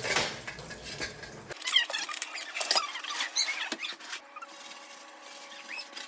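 Scrubbing and wiping a kitchen surface by hand, with a knock at the start and then runs of short squeaks as the cleaning pad or cloth rubs the surface.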